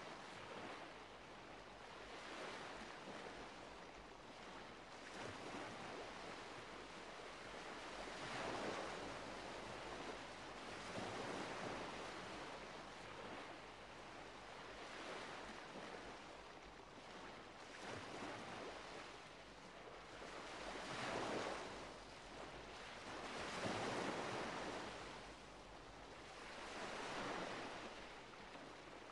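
Faint, even rushing noise like surf, swelling and fading every few seconds as if waves were washing in and out.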